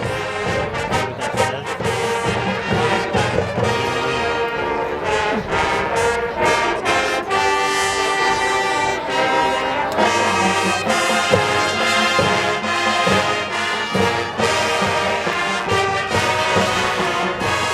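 College marching band playing a patriotic medley: brass (trumpets and trombones) sounding full sustained chords over steady drum strikes.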